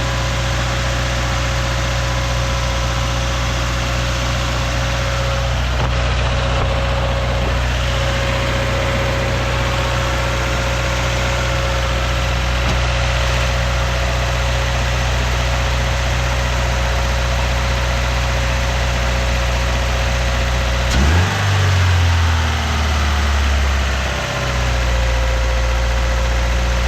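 Car engine idling steadily with a short rev about three-quarters of the way through, then settling back to idle. It is an engine whose noise is taken for a bad bearing (rod knock).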